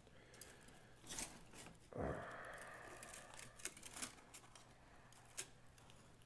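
Broken fibreglass shelter spar being worked out through its hub and the quilted shelter fabric: faint scraping and rustling with small clicks. About two seconds in there is a knock followed by a second or so of scraping.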